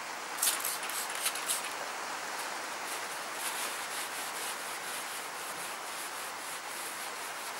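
A motorcycle alloy wheel being scrubbed and then rubbed with a cloth soaked in white spirit to clear off grease. A few sharp scrubbing strokes come about half a second to a second and a half in, then a run of softer rubbing strokes. A steady hiss of rain sits underneath.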